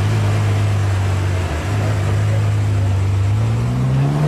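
Ferrari 812 Superfast's 6.5-litre V12 engine running steadily at low revs, then rising in pitch as the car accelerates about three seconds in.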